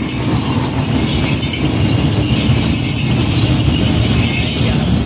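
Steady low rumble of road traffic and a slow-moving car.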